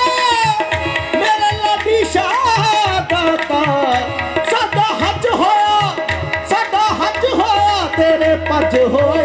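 Live qawwali music: harmoniums hold steady notes and move through a melody over a tabla rhythm, with a line that glides and bends between notes.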